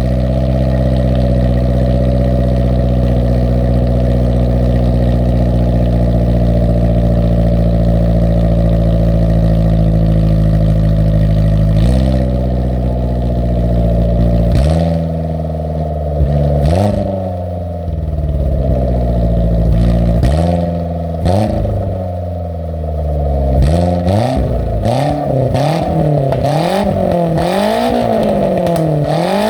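Engine exhaust through a one-off custom muffler, loud: a steady idle for about twelve seconds, then single throttle blips, then quick repeated revs near the end, the pitch rising and falling about once a second.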